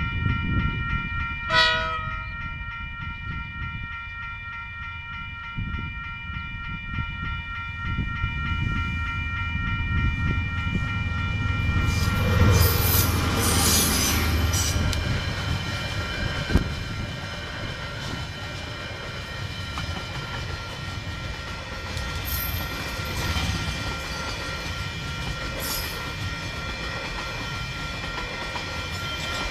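A KiwiRail freight train passing over a level crossing: a short horn blast about a second and a half in, the locomotive's rumble growing loud at about twelve seconds as it goes by, then the wagons rolling past with wheel clatter. Level crossing alarm bells ring steadily underneath.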